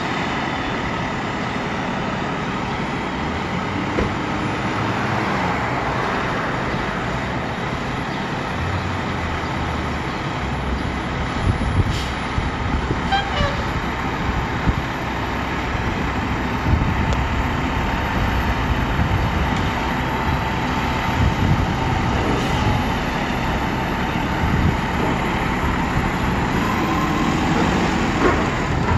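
Aerial ladder fire truck's diesel engine running steadily in the station bay, then pulling out near the end.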